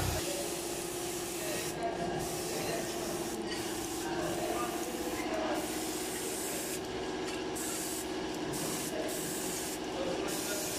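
Hose-fed paint spray gun hissing steadily as red enamel is sprayed onto an iron window grille, the hiss breaking off briefly several times, over a steady low hum.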